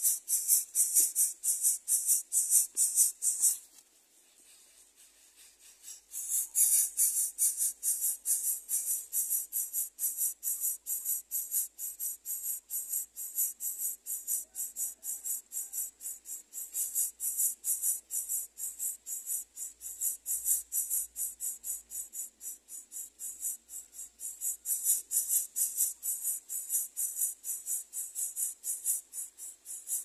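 Insects chirping in a fast, even train of high-pitched pulses, several a second, stopping for about two seconds early on and then resuming.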